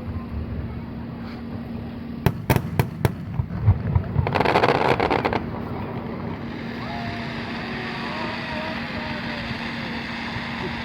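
Fireworks from the closing starmine: several sharp bangs about two seconds in, then about a second of dense crackling. The bursts then stop, leaving the murmur of a chattering crowd of spectators.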